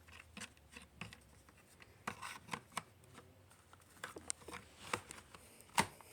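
Scattered light clicks and taps at uneven intervals, the loudest a sharp knock near the end, over a faint low hum: handling noise.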